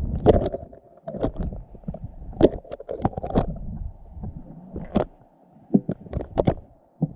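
Muffled, irregular knocks and clicks from a GoPro in its waterproof housing underwater, bumping about as it is bounced on the soft, silty bottom on a line, over a low gurgling rumble.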